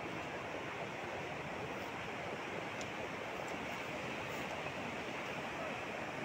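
Muddy floodwater of a wadi in spate after heavy rain, rushing steadily with no break.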